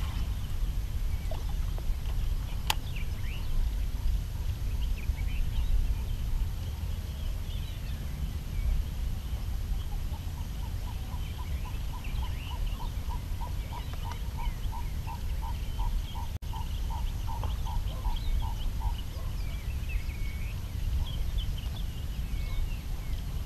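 Outdoor ambience at the water: a steady low rumble of wind on the microphone with small birds chirping, and, in the middle, an animal call repeated about three times a second for around nine seconds.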